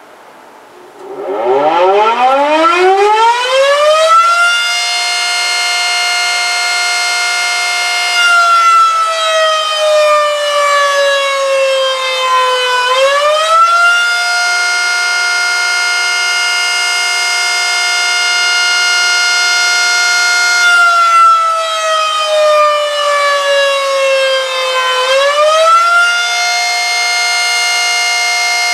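Federal Signal Model 5 electromechanical fire siren winding up from a standstill about a second in and climbing to a steady pitch. The pitch then slides slowly down and quickly back up twice, the rising-and-falling attack cycle of its scheduled test.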